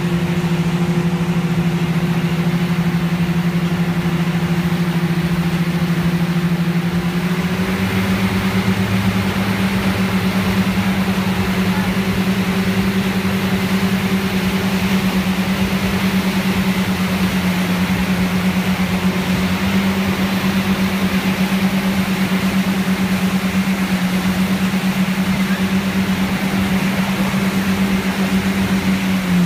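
Motorboat engine running steadily at speed while towing, its pitch stepping up a little about seven seconds in and then holding, over the steady rush of the wake.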